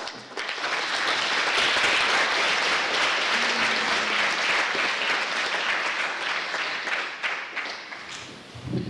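Audience applauding, starting just after the beginning and dying away near the end.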